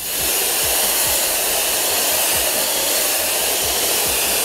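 Kranzle Therm CA11/130 hot pressure washer spraying heated pre-wash solution from its lance nozzle against a brick wall: a loud, steady hiss of the water jet.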